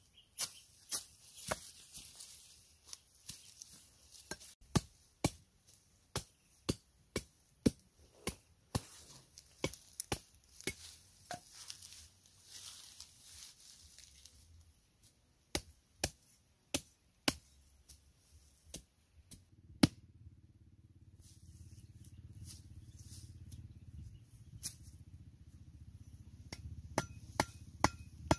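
Machete chopping into wooden stakes: a run of sharp strikes, one to two a second, that stops about twenty seconds in. A low steady rumble follows, with a few more strikes near the end.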